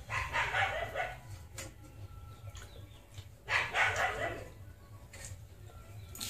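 Two bouts of animal calls, about three seconds apart, over a low steady hum.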